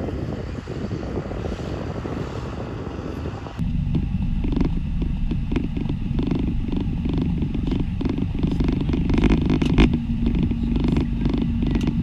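Wind buffeting the microphone over a distant tractor for about three and a half seconds, then a sudden cut to inside a tractor cab: the diesel engine running steadily, with frequent knocks and rattles of the cab.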